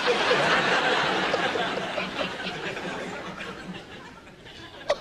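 Studio audience laughing, loudest at first and dying away over several seconds.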